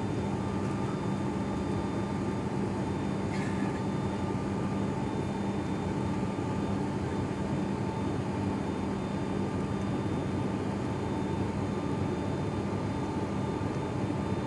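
Cabin noise of an ATR 72-500 turboprop airliner in flight: the steady drone of its Pratt & Whitney PW127 engines and six-blade propellers, with a low, even hum running through it.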